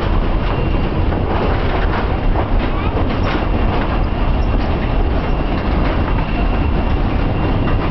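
Tourist train running along the track, heard from aboard a wooden passenger car: a steady rumble and clatter of the wheels on the rails, with a faint steady high whine over it.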